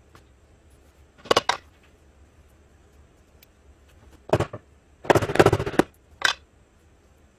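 Handling noises on a paper-covered workbench: a few short knocks and clatters of tools being picked up and set down, and a brief scrubbing rustle about five seconds in from a bristle brush moved over the paper.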